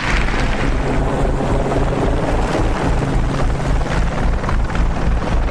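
Military transport helicopter's rotors and engines running loudly and steadily, the rotor wash whipping up dust.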